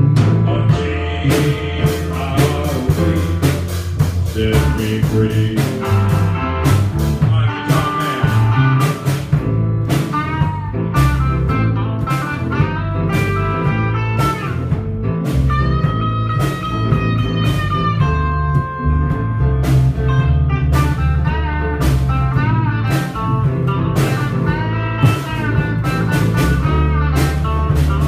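Live band playing a bluesy instrumental break, with a lead guitar playing bent, held notes over steady drums and a bass line.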